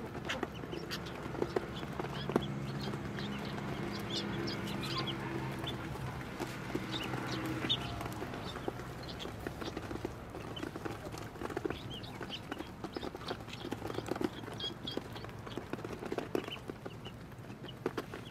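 A crowd of yellow ducklings peeping while pecking at feed on a plate, with many quick clicks of bills against the dish. A low steady hum runs under the first several seconds.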